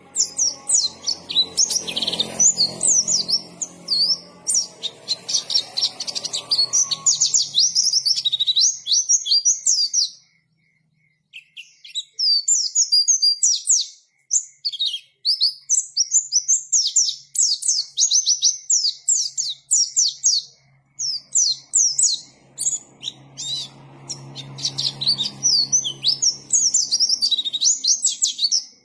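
White-eye (pleci) singing a fast, continuous twittering song of high chirps in long runs, with a few short breaks. A faint low hum sits beneath it at the start and again near the end.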